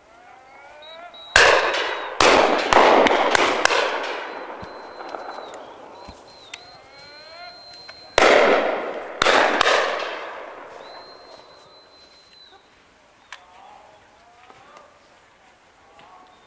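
Shotgun shots from a driven game shoot: a quick run of about six shots in the first few seconds, then two more near the middle, each followed by a long rolling echo.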